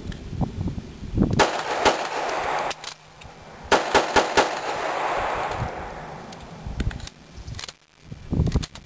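Handgun fire during the F.A.S.T. drill. Two pistol shots about half a second apart, a pause of well over a second for the reload, then four quicker shots, each ringing out with a long echo.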